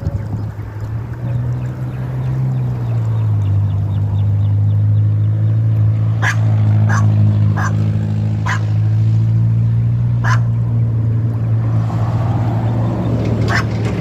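A steady low motor hum builds over the first few seconds and then holds evenly. Six short, sharp animal-like calls sound over it in the second half.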